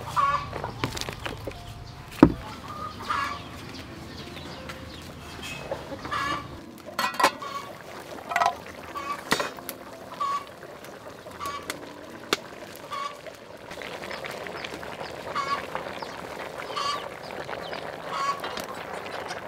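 Farmyard poultry giving short repeated calls, about one a second, with a few sharp knocks among them, the loudest about two seconds in.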